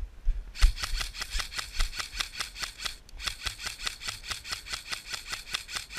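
Airsoft electric rifle (AEG) firing two long full-auto bursts, about eight shots a second, with a brief break about three seconds in.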